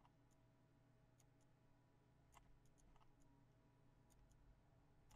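Near silence with faint, scattered computer mouse clicks, about a dozen short clicks spread unevenly.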